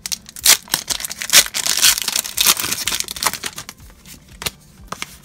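Pokémon TCG booster pack's shiny wrapper crinkling and tearing as it is pulled open by hand, a dense crackle for about three and a half seconds, then a few soft clicks.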